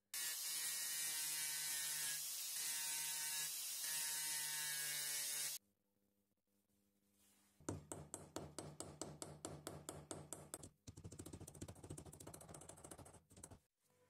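A steady hiss lasting about five and a half seconds. After a short pause comes a run of rapid, even rasping strokes, then a second run, as a small knife blade is rubbed back and forth by hand against an abrasive block. Faint background music sits underneath.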